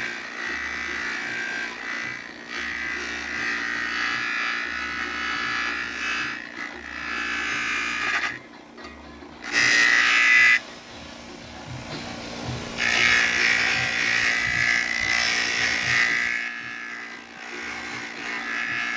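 Electric grinding machine running a wire brush wheel, scrubbing old glue off a speaker cone to ready it for regluing. The motor hums steadily under a loud, hissing scrub that drops back twice in the middle as the part is eased off the brush.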